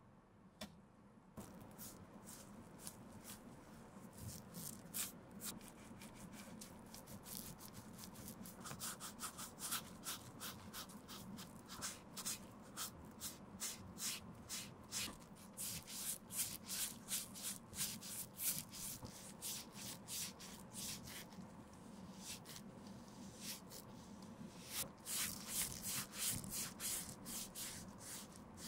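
Foam sponge dauber dabbing and rubbing black leather dye onto a shoe's leather, a quick run of soft wet taps and strokes. The taps come thickest about halfway through and again near the end.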